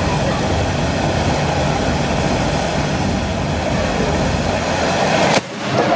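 Tezutsu handheld firework tube spraying a fountain of sparks, a loud steady rush of noise. About five and a half seconds in it ends with a sharp bang, the 'hane' burst that ends a tezutsu, and the rush cuts off abruptly, leaving crowd voices.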